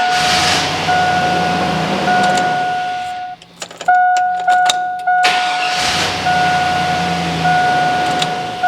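Starter cranking the 5.3 V8 of a 2002 Chevy Silverado for about three seconds, cut off, then cranked again a moment later as the key is cycled. This is a test for the intermittent crank-no-start that a faulty camshaft position sensor is suspected of causing. The truck's warning chime dings through both tries.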